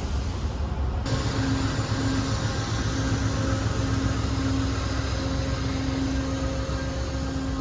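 Steady mechanical hum and rumble of a passenger train standing or running, with a low steady tone; the sound changes abruptly about a second in.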